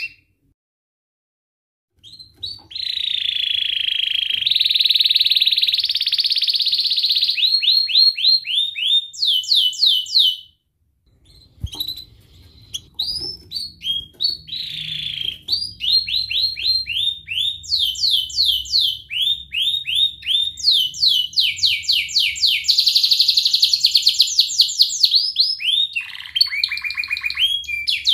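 Domestic canary singing: long rolling trills and runs of fast, repeated rising chirps, changing phrase every second or two. Silent for about the first two seconds, with a brief break and a sharp click near the middle.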